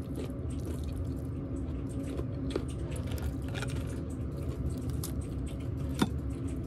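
Close-up eating sounds: chewing, with small clicks and cracks of crab shell being pulled apart by hand. A sharper click about six seconds in.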